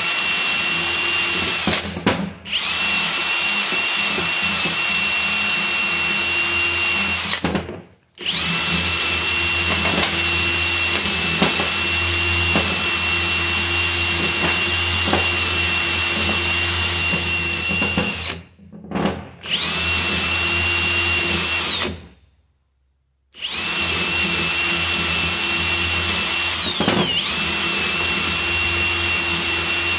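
Cordless drill running at a steady high whine in long stretches, stopping and restarting four times, with its pitch dipping briefly once near the end as it takes load.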